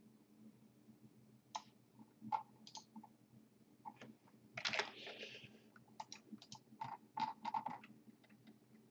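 Faint clicks of a computer mouse and keyboard, scattered at first, then coming thick and fast in the second half.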